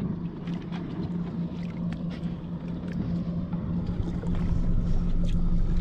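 A boat motor idling with a steady low hum, with light splashing and dripping of water at the hull side.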